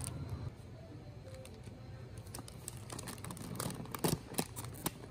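Plastic snack wrappers crinkling and crackling as packaged goods are handled and picked off a shelf, in a quick run of sharp crackles that get denser and louder in the last second or so.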